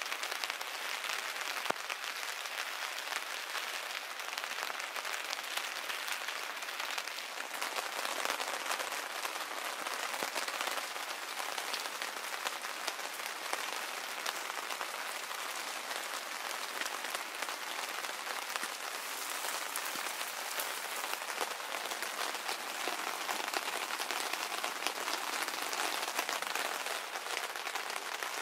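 Pouring rain drumming steadily on tent fabric, a dense, even hiss.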